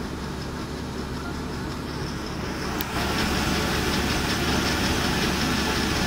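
A combine harvester runs steadily. About three seconds in, the sound turns louder and a dense rushing hiss joins it as threshed rice grain pours from the unloading auger spout.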